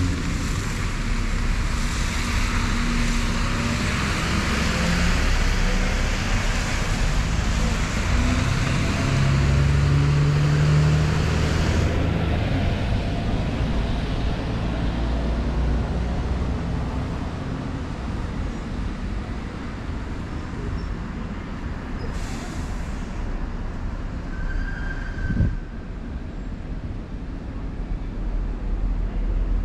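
Road traffic on wet tarmac: double-decker buses and cars passing with a hiss of tyres on the wet road and a low engine hum. The hiss thins out about twelve seconds in, and there is a single sharp knock about twenty-five seconds in.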